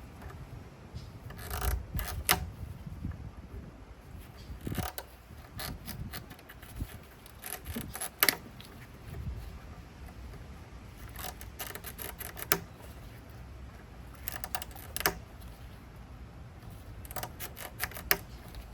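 Scattered clicks, taps and light rattles of hands and tools working on parts in a car's engine bay, some in quick little clusters, over a low background rumble.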